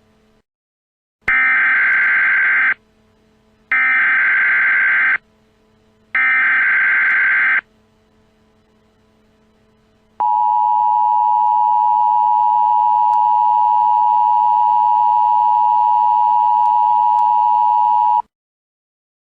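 Emergency Alert System header: three identical bursts of screeching digital data tones, each about a second and a half long. About two and a half seconds later the EAS attention signal sounds, a steady two-tone electronic beep held for about eight seconds that cuts off sharply. Together they announce an incoming emergency alert message.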